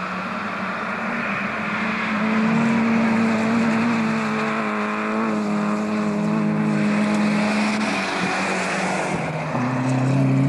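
Peugeot 205 GTI rally car's engine running hard as the car drives a gravel stage at speed; the engine note steps up and down in pitch a few times.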